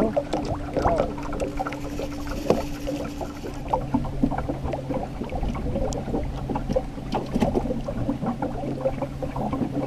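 Small fishing boat under way at trolling speed: a steady motor hum that shifts to a lower hum about three and a half seconds in, with water lapping and knocking against the aluminum hull.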